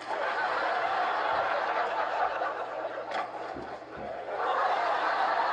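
Sitcom studio audience laughing, in two waves with a short lull about three and a half seconds in.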